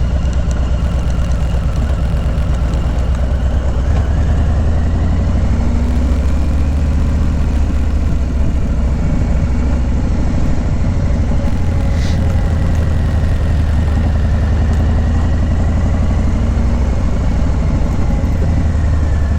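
Harley-Davidson Low Rider S's Milwaukee-Eight 114 V-twin engine running steadily while the motorcycle is ridden at an even pace, with no revving.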